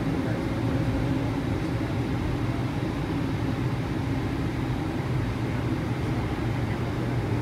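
Cabin noise of a Boeing 777-300ER taxiing with its GE90 engines at low power: a steady low drone that holds level throughout.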